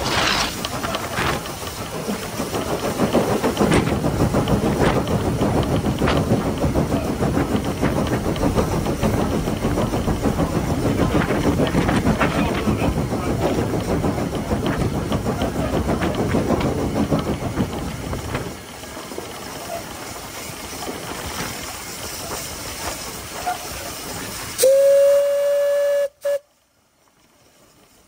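LSWR T3 class 4-4-0 steam locomotive No. 563 running along the line, a dense steady rush of running noise with scattered knocks that eases about two-thirds of the way through. Near the end its steam whistle sounds one steady note for about a second and a half, then cuts off abruptly.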